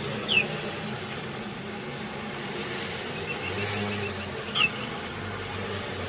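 Canaries chirping: two short, high chirps that fall in pitch, about four seconds apart, with a quick run of faint peeps in between, over a steady low background hum.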